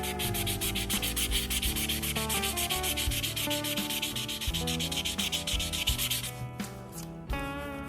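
Fine-grit sandpaper rubbed back and forth in quick, rhythmic strokes on a pocketknife's jigged handle, smoothing a chewed-up spot. The sanding stops about six seconds in, leaving faint guitar music.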